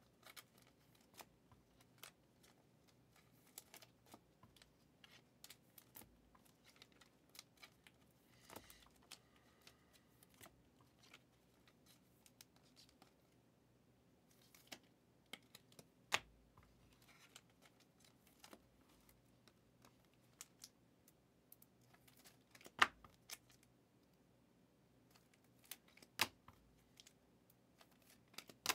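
Faint clicks and soft slides of trading cards being handled and flipped through one by one, with a few sharper snaps about halfway through and near the end.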